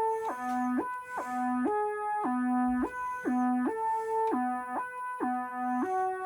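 OSCar40, a recreation of the OSCar monophonic synthesizer, playing a repeating riff of short single notes that hop between a low note and higher ones, with a held note starting near the end.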